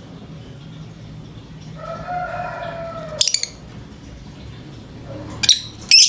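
Lovebird giving short, shrill, piercing calls: a quick cluster about halfway through and two more near the end. Before the first cluster, a rooster crows once in the background, a longer and lower call that falls slightly.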